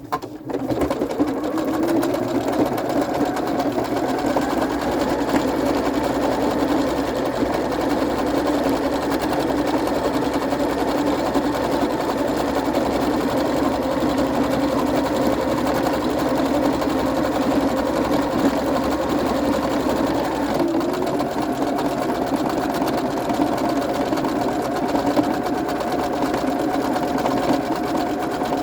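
Domestic sewing machine running steadily, stitching a decorative stitch through sweatshirt fabric; it starts up right at the beginning and runs without a break, its pitch shifting slightly about two-thirds of the way through.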